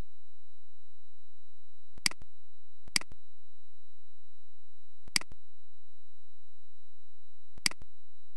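Four sharp computer mouse clicks, irregularly spaced, over a faint steady high-pitched tone.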